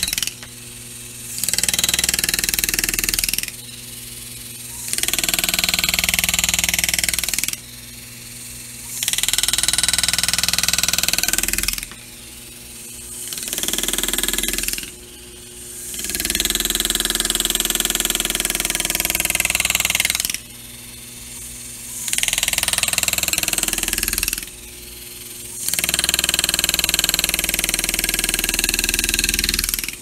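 Pneumatic hand-engraving handpiece (air graver) hammering its graver into a polished metal car door handle as it cuts the engraved lines. It runs in seven bursts of one to four seconds, with short breaks between as the work is repositioned.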